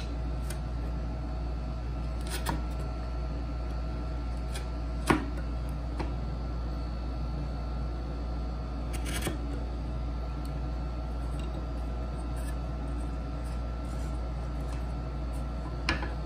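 A handful of isolated knocks and clicks from wood and hand tools being handled at a workbench, the loudest about five seconds in and another near the end, over a steady low hum.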